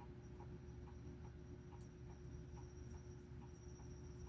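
Faint, short strokes of a fine needle file on a tobacco pipe stem's button, built up with black super glue, about two or three strokes a second over a steady low hum.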